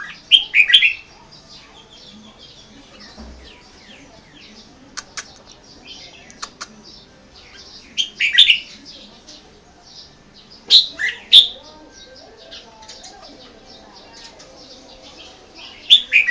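Caged red-whiskered bulbul singing short, loud bursts of quick chirping notes, four times with pauses between, over fainter bird chirping throughout.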